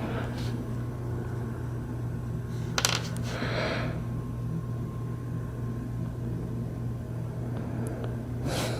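Small hard objects being handled on a surface: a sharp click about three seconds in, followed by a short rustle, and another brief rustle near the end, over a steady low hum.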